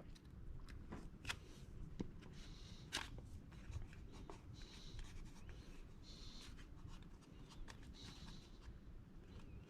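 Vinyl wrap film being stretched and rubbed down by hand over a door handle: a few short scraping rubs and a handful of light clicks.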